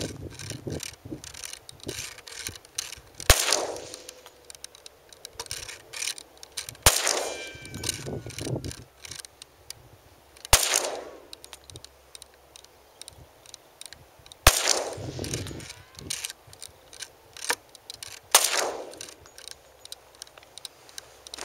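Five pistol shots from a Glock 20SF 10mm handgun, fired one at a time about four seconds apart. Each shot trails off in an echo lasting about a second.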